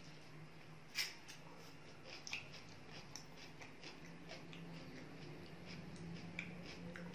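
Quiet close-miked eating: scattered small clicks and smacks of chewing and handling food, the loudest about a second in, over a low steady hum.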